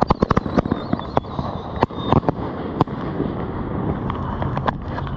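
Consumer firework going off on the ground: a fast run of sharp cracks and pops that thins out after about three seconds.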